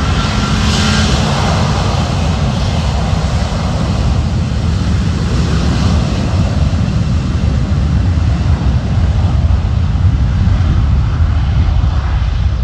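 Jet engines of an Avianca cargo plane at takeoff power on departure: a loud, steady, deep rumble.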